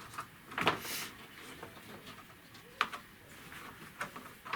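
Light handling noise from small parts being picked up and set down: a sharp click about two-thirds of a second in with a brief rustle after it, another click near three seconds, and a few light ticks near the end.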